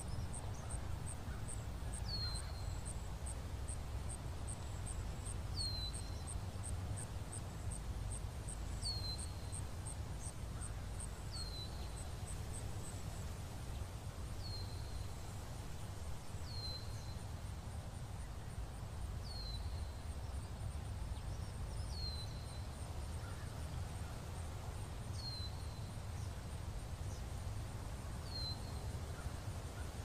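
Forest ambience: a bird repeats a short, falling high note about every three seconds over a low, steady rumble. A fast, high ticking runs throughout, at about three ticks a second at first and turning into a quicker, almost continuous pulsing about halfway through.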